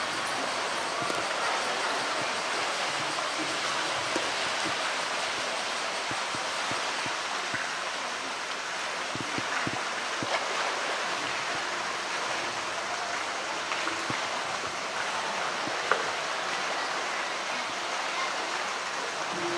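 Steady rush of flowing water in a polar bear's pool, with a few brief faint knocks, the sharpest about 16 seconds in.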